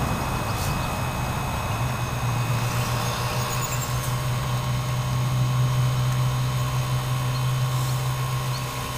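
A small motor running steadily with a low, even hum.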